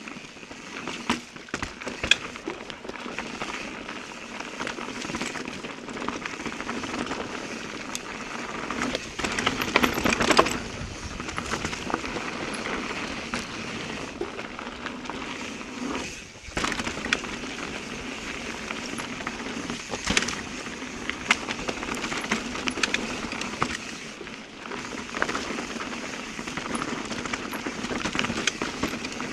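Eminent Haste mountain bike riding a rough dirt trail: a continuous crunch of tyres on loose ground, with many sharp clicks and rattles from the bike, louder in spells.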